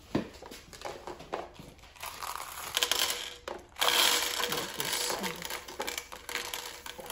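Skittles poured from a cup, rattling and clicking onto the plate of a waffle iron, with crinkling handling noise; the rattle is densest around the middle.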